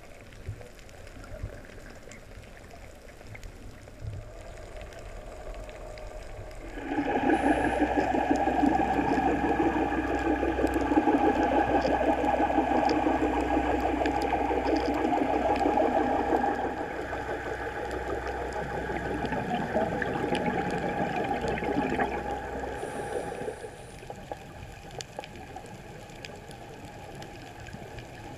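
Underwater sound: faint crackling clicks, then from about seven seconds in a loud, steady rushing noise with a low hum that eases off partway through and stops about seven seconds before the end.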